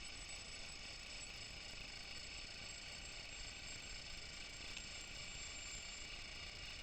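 Faint, steady hiss with a few thin, high, constant tones: background noise, with no rocket heard.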